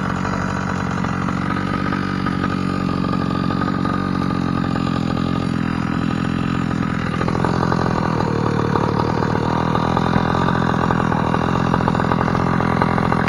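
The gas engine of a Primal RC 1/5-scale Raminator monster truck, a stock engine fitted with a Bartolone exhaust, idling steadily while the truck sits parked. It runs a little louder about seven seconds in.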